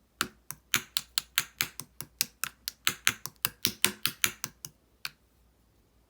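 Purple opaque slime being squeezed and pressed by hand, giving a quick run of crisp clicks and pops, about four or five a second, that stops about five seconds in.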